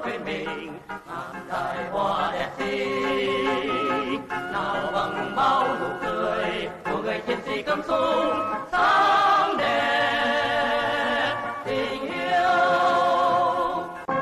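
Music: a male vocal group singing a song with instrumental accompaniment, with vibrato on the held notes.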